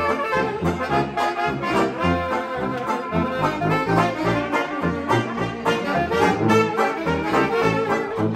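A live jazz band playing: trumpet and saxophones over sousaphone bass notes that fall about twice a second.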